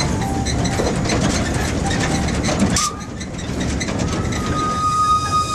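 Steam locomotive heard from its cab beside the firebox: a steady rattling, clattering running noise that drops off suddenly about three seconds in, followed by a steady high-pitched squeal from about four seconds in.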